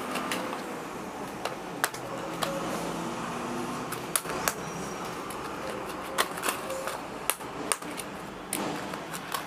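Small boxes of fishing hooks being handled, opened and set down: irregular light clicks and taps over a steady low hum.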